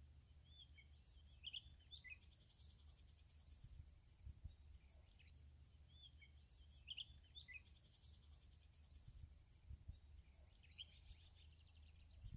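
Faint summer field ambience: a steady high insect tone with three spells of rapid insect chirring, and scattered short bird chirps over a low rumble.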